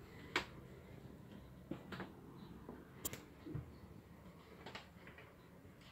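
A few light, irregular clicks and knocks over a faint steady background, the loudest about a third of a second in.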